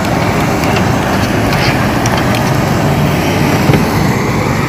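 Gas blowtorches burning steadily against squid on a hot griddle: a loud, even rushing noise, with one sharp knock late on.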